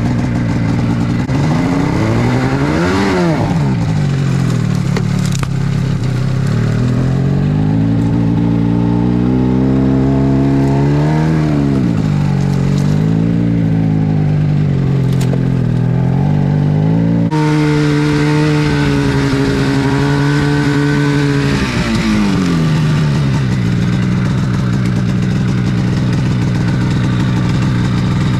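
Polaris snowmobile engine revving up and down as the sled is ridden off on a track that had torn in half and is now held together with hose clamps. The pitch rises briefly about three seconds in, climbs again from about eight seconds, stays high for a while, then falls back to a lower, steady note for the last few seconds.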